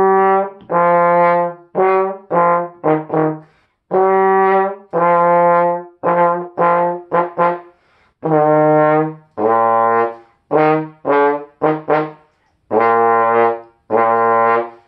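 Trombone playing a fast band melody: a run of separate tongued notes, most on and around the G below middle C and a few lower ones, with three short pauses between phrases.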